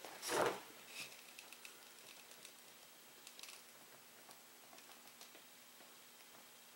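Faint handling noises from hands working a rubber RC truck tire and a small tube of tire glue: a short rustle near the start, then scattered light clicks and ticks.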